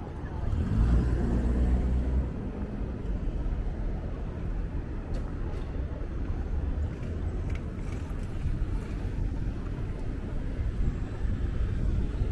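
A car engine running close by, its low hum loudest about a second in, over a steady low street rumble.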